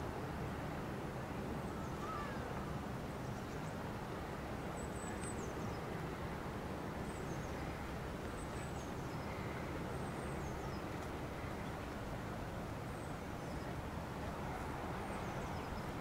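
Steady outdoor city ambience: a low, even hum of distant traffic, with faint high bird chirps that fall in pitch, coming every second or two.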